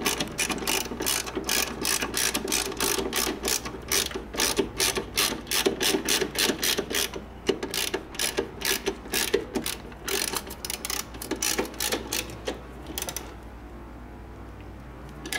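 Hand socket ratchet clicking quickly and evenly, about four clicks a second, as a nut on the upper control arm mount is run down; the clicking stops about 13 seconds in.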